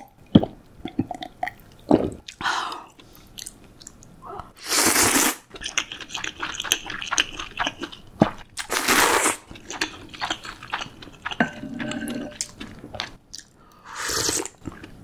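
Close-miked eating sounds: small gulps of a drink at the start, then chewing, broken by three loud slurps from a wooden spoon, about five seconds in, about nine seconds in and near the end.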